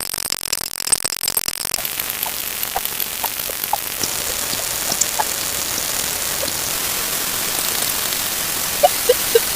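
Steady static-like hiss with short scattered blips that come more often in the last second: timer sound effects played 64 times faster.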